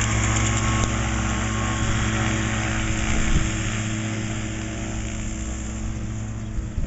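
Kolb Kolbra ultralight's engine and pusher propeller running with a steady drone as the plane taxis past, fading as it moves away from about halfway through. A few low thumps come right at the end.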